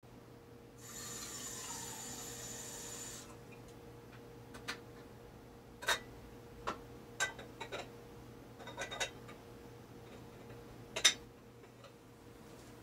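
A hiss lasting about two and a half seconds near the start, then a string of sharp clicks and clinks from kitchen handling, the loudest one near the end, over a faint steady hum.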